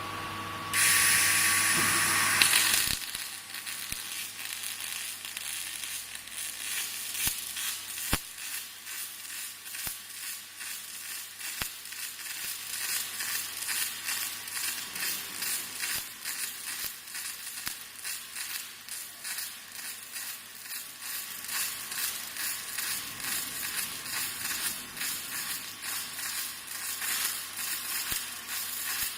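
Robot-held MIG/MAG welding arc crackling and sizzling steadily. It begins with a loud hiss of about two seconds.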